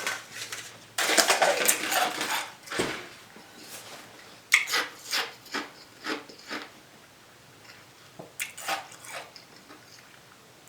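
Close-up crunching of Sonic nugget ice being chewed, in irregular bursts of crackling bites, densest in the first few seconds and then in shorter clusters.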